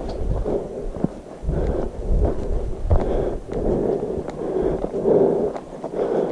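Footsteps on a dirt hiking trail, about one step every half to three-quarters of a second, with wind rumbling on the microphone and a few light clicks.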